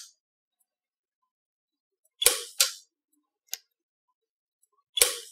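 Orion dental welder in spot mode, tack-welding stainless steel to cobalt chrome with a copper-tipped probe handpiece: sharp weld snaps in two pairs, each pair a third of a second apart, about two seconds in and again near the end, with a faint tick in between.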